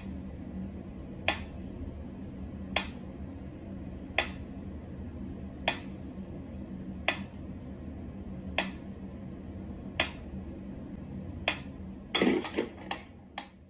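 Mechanical pendulum metronome ticking slowly and evenly, about one tick every second and a half. Near the end a quick clatter of several louder knocks as a cat swats at the metronome.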